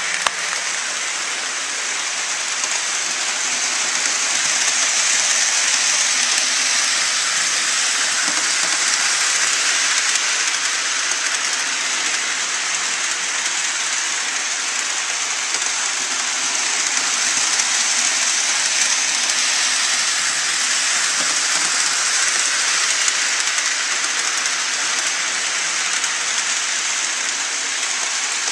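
HO scale model train running on the track: a steady hiss of the wheels and motor that holds level throughout.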